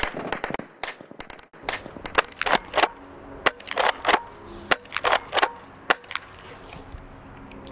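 DE M56A tri-shot spring airsoft shotgun being fired and pumped: a string of short, sharp snaps and clacks coming a few per second, then stopping.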